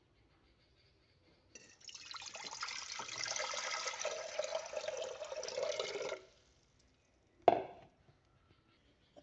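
Water poured in a steady stream into an empty aluminium pot for about four and a half seconds, then stopping. About a second later, a single sharp knock.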